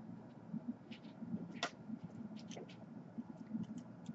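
Small clicks and taps of a laptop motherboard and metal tweezers being handled on a workbench, about ten in all, the loudest about one and a half seconds in, over a faint low hum.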